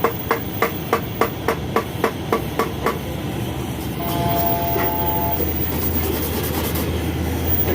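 Hammer tapping in quick even strokes, about three a second, then stopping about three seconds in, during work on a motorcycle radiator tank. A steady low hum runs underneath, and a short steady two-note tone sounds about four seconds in.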